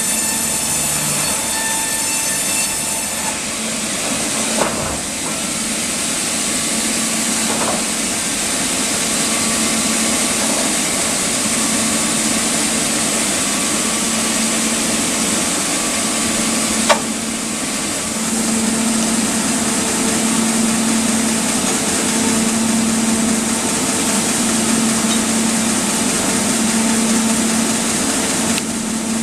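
Sawmill machinery running: a loud, steady mechanical noise with a constant hum under it, and a sharp knock about 17 seconds in.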